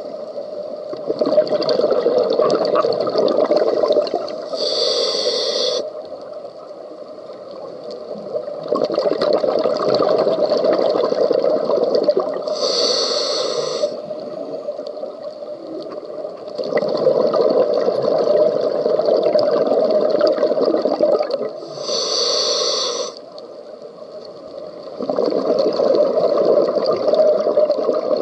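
Scuba diver breathing through a regulator underwater. Three short hissing inhales, roughly eight to nine seconds apart, alternate with long, loud bursts of exhaled bubbles lasting about three to four seconds each.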